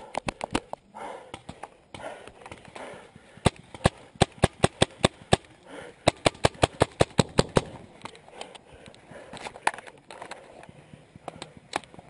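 Magfed paintball marker firing in rapid volleys of sharp pops, the fastest run at about six shots a second, with fainter shots in between.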